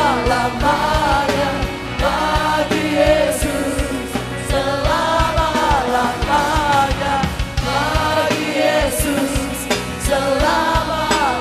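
Live gospel music: a group of voices singing sustained phrases together over a band with a steady drum beat, with short breaks between the phrases.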